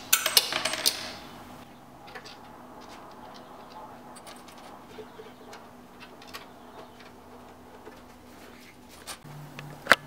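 Small metal and plastic clinks and clicks of PC fan mounting hardware being handled against a radiator: a quick flurry of loud clicks in the first second, scattered light ticks after, and one sharp click just before the end.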